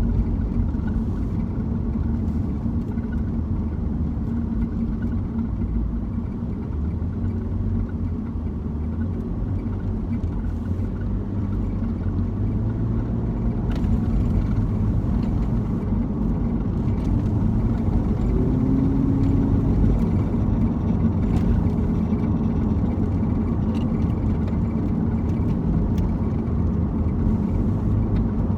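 Steady road and engine rumble heard inside a BMW Z4's cabin, with a few brief, faint chirps from the dashboard at irregular intervals. The cause of the chirp is unknown; the owner has ruled out the blower fan.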